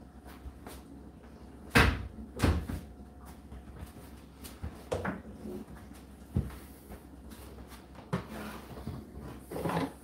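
Plastic door and fittings of an Indesit condenser tumble dryer handled: the door is unlatched and swung open and the plastic lint filter is worked out of the door frame, giving a string of sharp clicks and knocks. The loudest come about two seconds in, with smaller ones spread through the rest.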